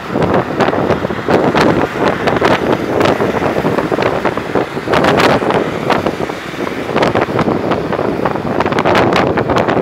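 Heavy, uneven wind buffeting on a phone microphone filming from a moving open vehicle, over road and traffic noise.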